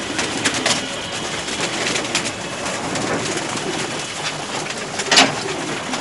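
Many domestic pigeons cooing together in a crowded cage, a steady low cooing. A few short sharp clicks sound over it, with one louder clap about five seconds in.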